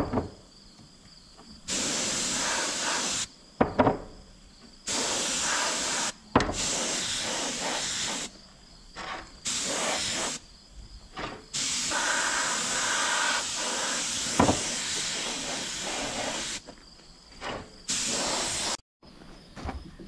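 Compressed-air gravity-feed spray gun spraying paint, a hiss that starts and stops sharply as the trigger is pulled and let go, in about seven bursts of one to five seconds each.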